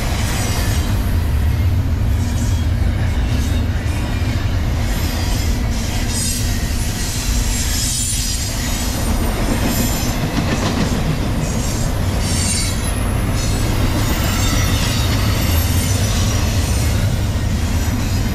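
Double-stack intermodal freight train rolling past: a steady heavy rumble of the container cars, with high-pitched wheel squeal coming and going over it.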